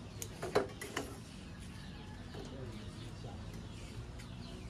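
Light clinks of a spoon against a cooking pot as it is stirred, about half a second and one second in, over quiet outdoor background with a bird calling faintly.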